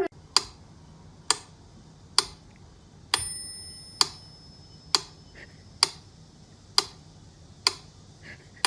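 Steady clock-like ticking, a little under one tick a second, with a small bell giving a short ringing ding about three seconds in and again near the end.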